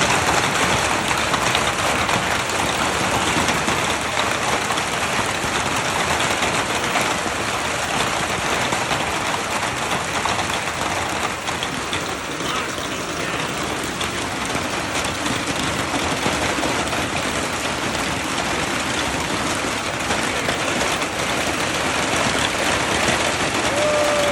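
Heavy hail coming down, a dense steady patter and hiss of hailstones striking surfaces. A brief tone is heard near the end.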